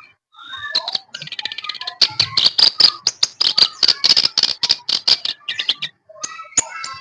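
Kerak basi (clamorous reed warbler) singing a loud, fast, chattering song of rapid clicking and whistled notes. It breaks off briefly near the end, then starts again.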